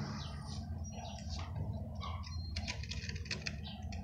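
Small birds chirping and twittering in quick, repeated short calls, over a steady low rumble.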